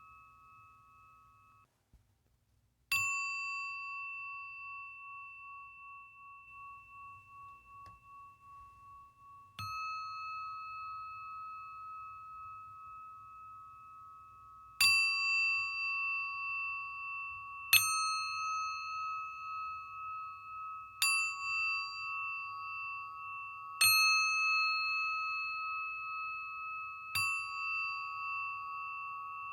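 Singing bowl struck seven times at uneven intervals a few seconds apart. Each strike leaves a long, wavering ring that overlaps the next. An earlier ring cuts off suddenly about two seconds in, leaving a short silence before the first strike.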